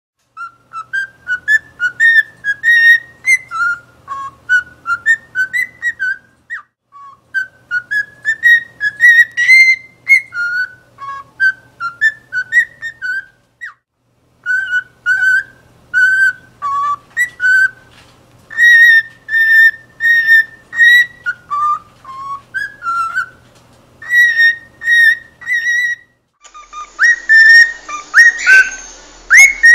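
Cockatiel singing: runs of short whistled notes that step up and down in pitch, in long phrases broken by brief pauses. Near the end the whistling goes on over a background hiss.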